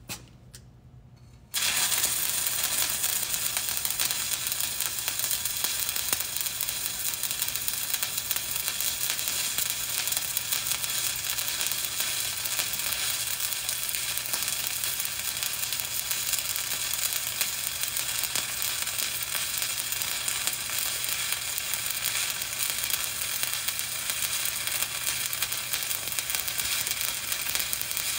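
Stick (shielded metal arc) welding: the arc strikes about a second and a half in and then burns steadily with a continuous crackling hiss as the rod runs a bead.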